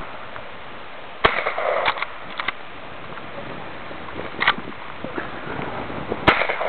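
Shotgun fired twice, about five seconds apart: two sharp, sudden blasts.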